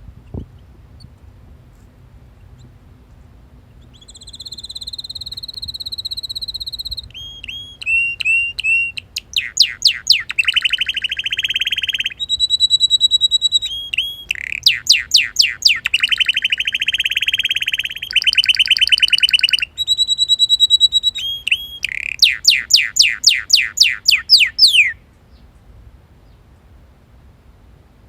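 Male red canary singing one long song of about twenty seconds: a held whistle, then rapid rolling trills and runs of quick downward-sweeping notes.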